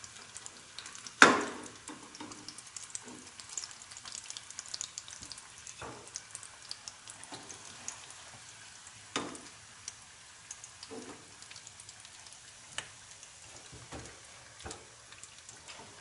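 Pocket samosas deep-frying in hot oil in a kadai, a steady faint sizzle and crackle. A steel slotted spoon knocks against the pan several times, loudest about a second in.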